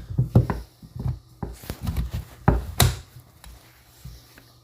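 Irregular clicks and knocks of hands handling a rebuilt Milwaukee M18 impact gun, with a few sharper knocks around two to three seconds in, then quieter.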